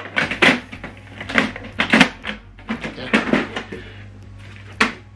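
Hard plastic clunks and knocks from an Epson WorkForce WF-2960 printer as its rear paper-jam access cover is pressed back into place and the printer is shifted and turned on the table: a run of knocks in the first few seconds, then one sharp knock near the end.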